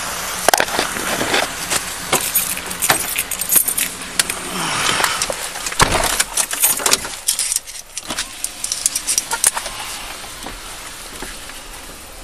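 Rustling and clicking of clothing and gear rubbing against a chest-worn body camera as its wearer climbs into a patrol car, with a heavy thump about six seconds in; quieter after that.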